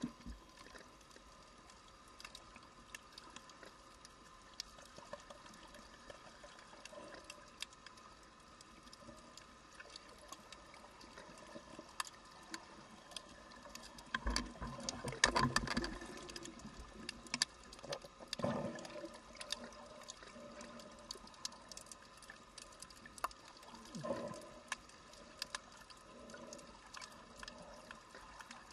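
Underwater sound heard through a submerged camera on a shallow reef: a constant crackle of faint clicks over a faint steady hum. About halfway through comes a louder rush of water noise lasting a couple of seconds, and a shorter one a few seconds later.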